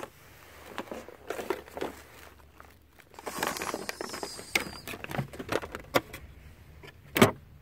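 Toy packaging being handled: crinkling and rustling with scattered small clicks and taps, busiest about three to four seconds in, and a sharper knock about seven seconds in.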